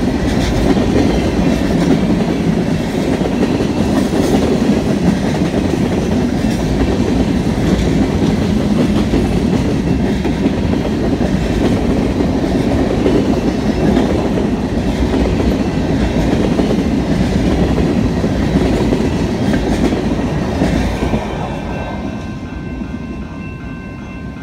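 Covered hopper cars of a long freight train rolling past close by: a steady rumble of steel wheels on rail with occasional clacks. About 21 seconds in the last car passes and the sound falls away as the train recedes.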